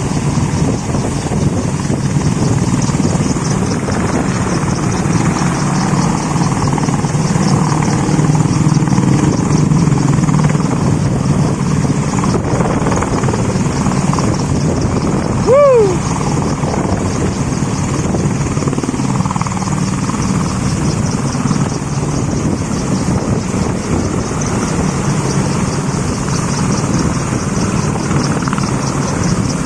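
Helicopter main rotor beating steadily and loudly, a continuous fast chop with engine noise. About halfway through, a short falling call cuts through briefly.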